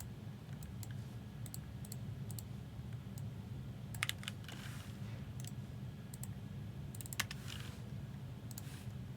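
Scattered clicks of a computer mouse and keys, in small clusters about four and seven seconds in, over a steady low hum.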